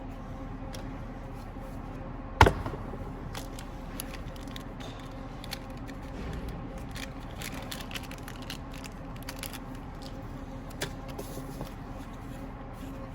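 Parts of a car blower motor housing being handled and taken apart on a bench: scattered light clicks and one sharp knock about two and a half seconds in, over a steady low hum.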